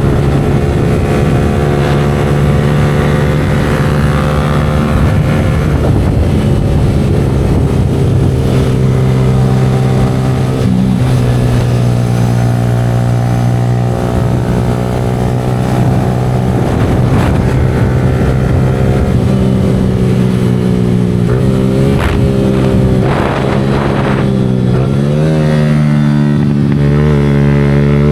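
Yamaha R15 V4's 155 cc single-cylinder engine running through an aftermarket Leo Vince exhaust while riding, holding a steady note with a rushing noise underneath. Near the end the pitch wavers briefly a few times, then settles a little higher.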